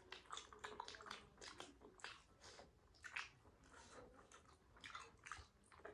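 Faint chewing of momo dumplings: a run of irregular wet mouth smacks and small clicks, several each second.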